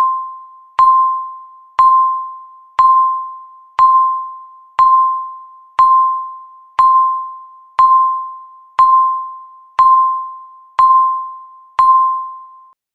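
Countdown timer beeps, one a second: each a single electronic ding that starts sharply and fades away over the second, about a dozen in a row. Each beep marks one second left before the timer runs out.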